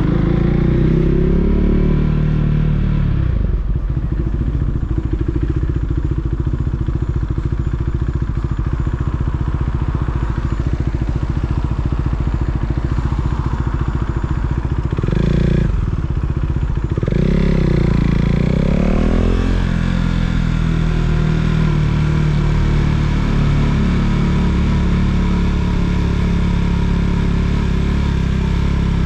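KTM Duke 390's single-cylinder engine running in slow traffic. It slows down and settles to a low idle, gives a quick blip of the throttle about halfway through, then accelerates with rising pitch and runs steadily.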